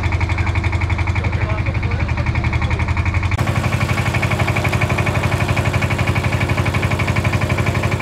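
An engine idling steadily with a fast, even beat. Its tone shifts slightly about three and a half seconds in.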